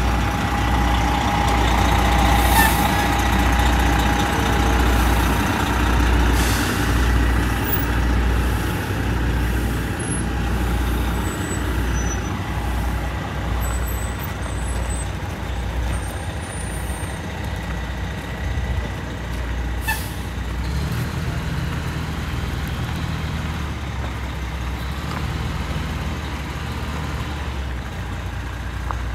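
Diesel engine of a large tag-axle motorcoach conversion running steadily at low speed as the coach manoeuvres and drives off, with a few short air hisses from its air brakes.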